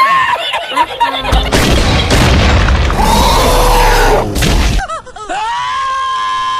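Meme sound effects: a moment of laughter, then a loud boom with a deep rumble lasting about three and a half seconds, then a long drawn-out scream near the end.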